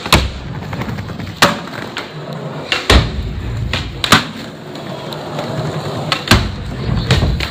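Skateboard wheels rolling on a concrete floor with a low rumble, broken by several sharp clacks of the board popping and landing, the loudest about three seconds in.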